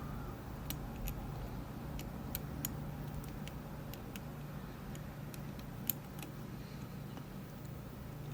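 Light, irregular metallic clicks of a lock pick working the pins of a Rav Bariach LocXis pin-in-pin euro cylinder, about ten ticks spread unevenly, over a steady low hum.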